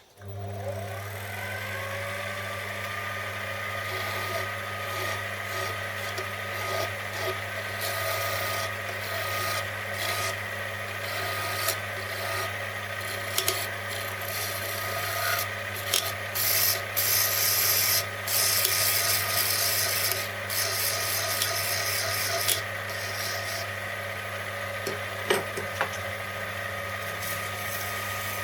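Small metal lathe switched on, its motor winding up in pitch over about a second and then running with a steady hum. Over the hum come patches of scraping as metal is taken off the spinning steel spindle, loudest in the middle, with a few sharp clicks near the end.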